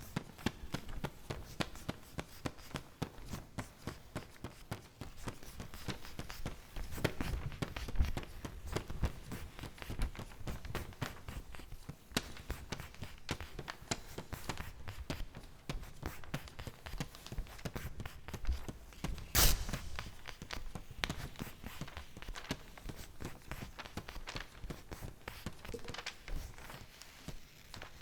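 Paper being handled and crumpled: a dense, irregular crackling and rustling, with one louder sharp crack about two-thirds of the way through.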